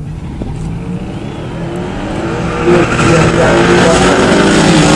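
Big-block V8s of a 1967 L78 Chevrolet and a Buick GSX Stage 1 running at a drag-strip start line, then launching hard about three seconds in and getting steadily louder as they pull away.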